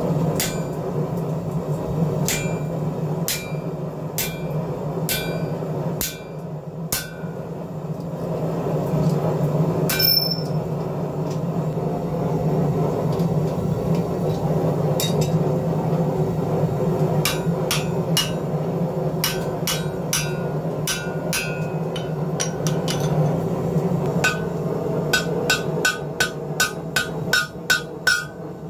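Hand hammer striking red-hot square steel on a steel anvil, each blow ringing off the anvil: single blows about a second apart at first, fewer in the middle, then a quick run of about three blows a second near the end as the bar is bent over the anvil horn. A steady low hum runs underneath.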